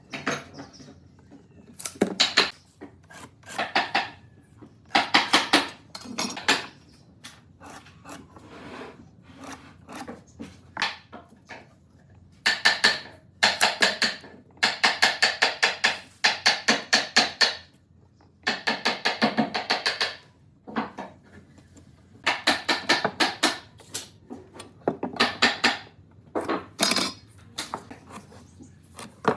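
Repeated bursts of rapid scraping or rasping strokes, each about half a second to two seconds long, separated by short pauses: a hand tool working wood.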